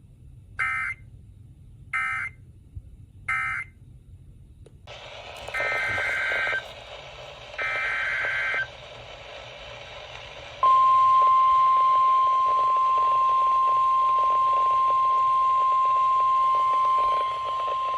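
Emergency Alert System data bursts: three short screeching bursts that end one alert (the end-of-message code), then, over a hiss, two longer bursts that open the next alert (the header code). About two-thirds of the way through, the long, steady, single-pitch NOAA Weather Radio warning alarm tone starts and holds.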